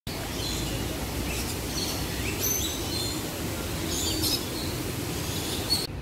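Several birds chirping and calling in a large walk-through aviary: short, high calls, some jumping in pitch, over a steady low background rumble. The sound cuts off just before the end.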